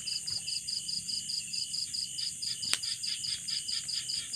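Night insects chirping in a steady pulsing rhythm, about four chirps a second, over a continuous higher-pitched insect hiss. A single sharp click sounds about two and a half seconds in.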